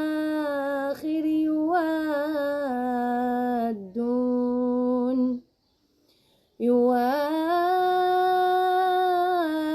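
A woman reciting the Quran unaccompanied in a slow melodic tajwid style, drawing out vowels into long held notes with small turns in pitch. She breaks off for about a second just past the middle, then holds one long steady note.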